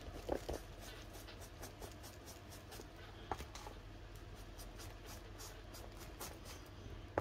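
Distress ink being rubbed onto paper with an ink blending tool: faint, scratchy, repeated strokes.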